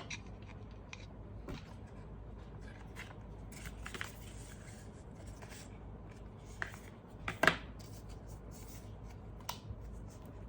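Handling sounds of unboxing: scattered light clicks, taps and rustles of packaging and accessories being handled, with one sharper click about seven and a half seconds in.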